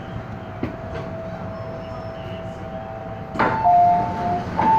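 Inside an MTR M-Train car, a steady whine from the train as it comes to a stop. About three and a half seconds in there is a sharp knock as the doors open, followed by a two-tone door chime, sounded twice.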